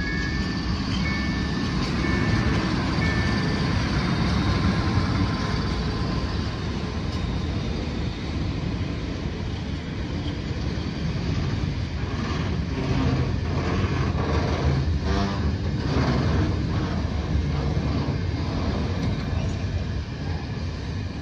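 A freight train hauled by a PKP Cargo ET22 electric locomotive passes close by with a loud, steady rumble. The wheels clatter rhythmically over the rails in the middle of the passage. The level-crossing warning bell chimes about once a second for the first few seconds, then stops.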